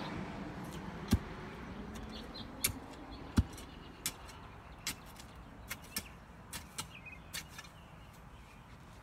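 Irregular sharp knocks and clicks, about a dozen, the two heaviest thuds in the first few seconds, over a steady noise that fades away.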